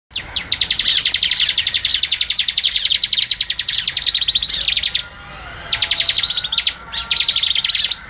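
Bar-winged prinia (ciblek) singing: one long, rapid trill of high, evenly repeated notes lasting about five seconds, then after a brief pause two shorter trills.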